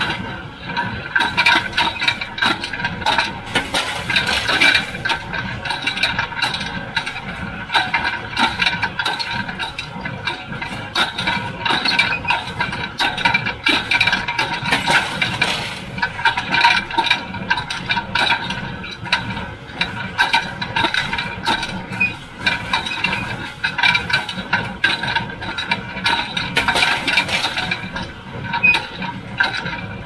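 John Deere 348 small square baler with its #42 pan kicker running in the field: continuous metallic clatter, rattling and clinking from the working machinery, with engine noise underneath.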